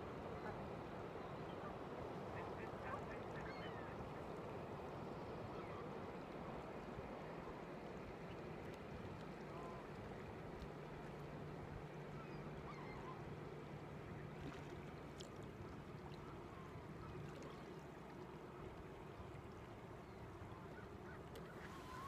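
Faint, steady rush of river water and wind, with a few brief, distant waterfowl calls.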